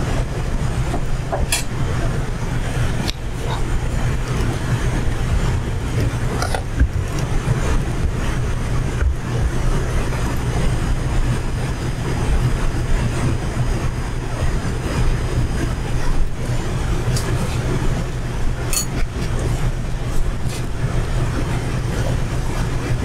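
Beignet dough frying in a large pot of hot oil over a gas range, under a steady low rumble. A few light metal clicks come at scattered moments.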